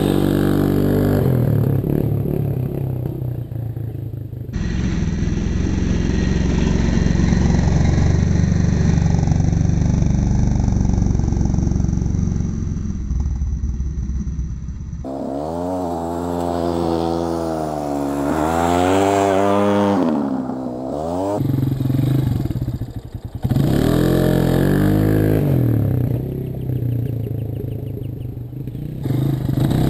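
Four-wheeler (ATV) engine running and revving, its pitch rising and falling again and again as the rider throttles up and eases off. The sound changes abruptly twice, about four seconds in and again about fifteen seconds in.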